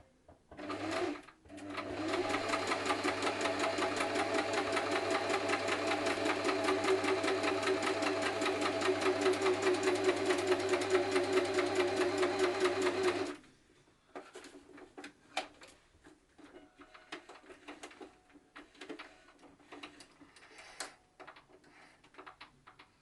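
Singer 8280 sewing machine running: a short burst, a brief pause, then about twelve seconds of steady stitching with a fast, even clatter that stops abruptly. Scattered light clicks and taps follow.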